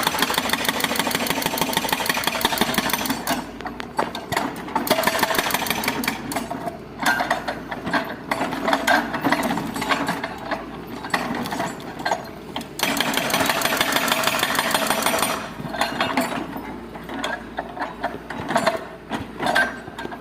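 Excavator at work: a dense, rapid metallic rattling and clanking that comes in long spells of a few seconds each, with scattered single clanks between them and near the end.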